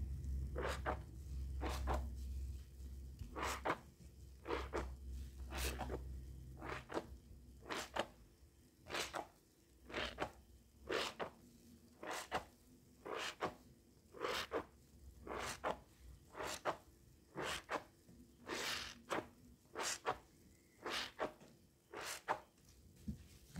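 A hand pressing and squishing into a thick mound of soap foam from soaked sponges, a steady run of soft, wet squishes a little faster than one a second. A low rumble sits under the first several seconds.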